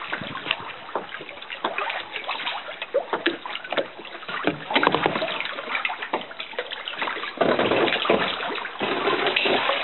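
Water splashing and sloshing around a kayak as it is paddled through a small rock sea cave: irregular paddle splashes and drips. The splashing grows louder about five seconds in and again from about seven and a half seconds in.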